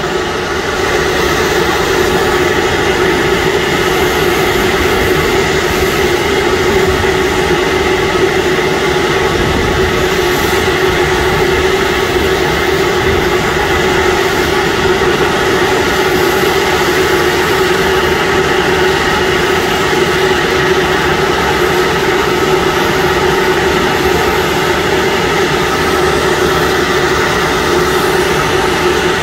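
Steady airport ramp noise: a constant turbine whine made of several held tones over a low rumble, unchanging throughout.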